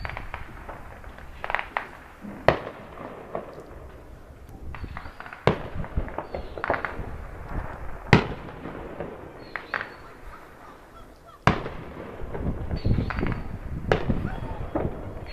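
New Year's fireworks going off: about four sharp, loud bangs roughly three seconds apart, with many smaller pops and crackles between them over a low rumble.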